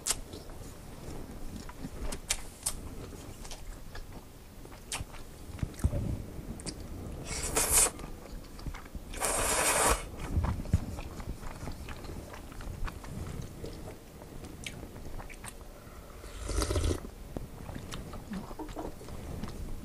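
Close-up eating sounds of udon noodles: wet chewing with small mouth clicks throughout. Three noisy slurps stand out, the longest and loudest about halfway through and another near the end.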